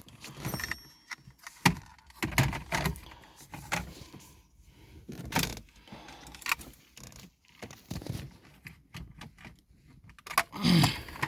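Scattered clicks, taps and light rattles of plastic dashboard trim, clips and electrical connectors being unclipped and handled inside a car's cabin.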